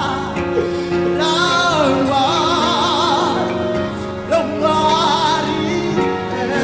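Worship music: a solo voice singing long, wavering held notes with strong vibrato and no clear words, over steady sustained accompaniment chords.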